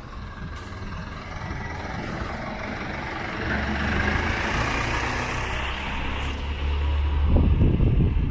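A motor vehicle's engine running close by, its low hum setting in about three seconds in and growing louder toward the end.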